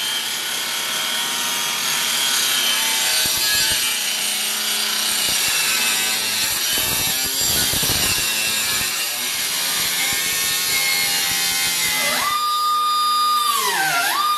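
Corded angle grinder with a thin cut-off disc cutting through the rusted sheet-steel lower edge of a car door, its motor whine wavering under load. Near the end the disc comes free and the grinder runs at full speed with a clean, steady whine, pulling down briefly as it bites the metal again.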